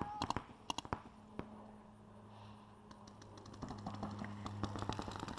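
Paintball markers firing in rapid strings of pops across the field. The shots thin to a few single pops about a second in, then pick up again in quick strings from about three and a half seconds in, over a low steady hum.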